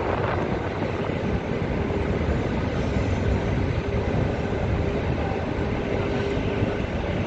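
Distant steady jet rumble of an Airbus A350-900's Rolls-Royce Trent XWB engines as the airliner climbs away after takeoff.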